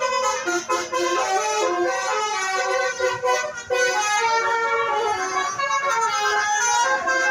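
Tour bus's Basuri 'telolet' musical horn playing a tune, a quick run of short notes stepping up and down.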